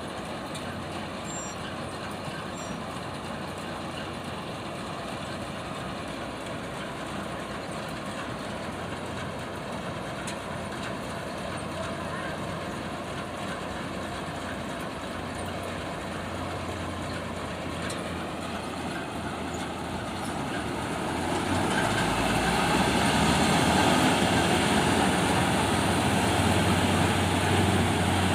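Syan 998 combine harvester running steadily while cutting wheat, a constant engine and machinery drone. It grows louder about three quarters of the way through and stays loud.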